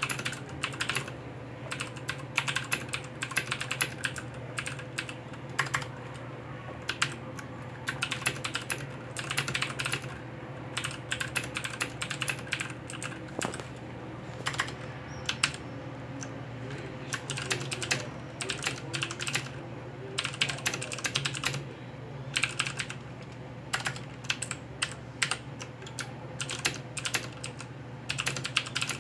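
Typing on a HyperX Alloy FPS mechanical keyboard with clicky Cherry MX Blue switches: quick runs of sharp keystroke clicks in bursts with short pauses. A steady low hum runs underneath.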